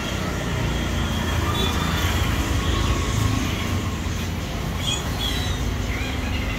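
Steady low rumble of road traffic passing the open shopfront.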